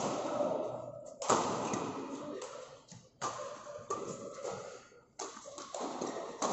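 Badminton rally: shuttlecock struck back and forth by rackets, a sharp hit roughly every second, each echoing briefly in the hall.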